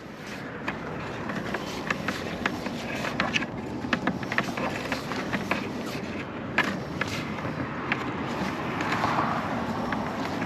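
Magnet-fishing rope being hauled up by hand and dropped into a bucket: irregular rustles, taps and clicks over a steady hiss of road traffic.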